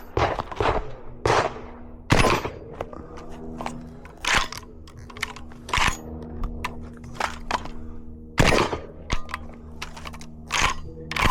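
Gunshots at a shooting range: about ten sharp reports spaced irregularly, roughly a second or more apart, each with a short echoing tail. The loudest come about two seconds in and near eight and a half seconds.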